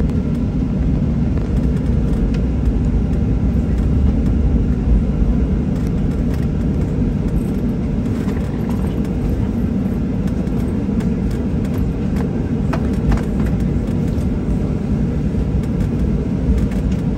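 Jet airliner rolling on the ground after landing, heard inside the cabin: a steady low rumble of the engines and wheels through the fuselage, with a few faint rattles.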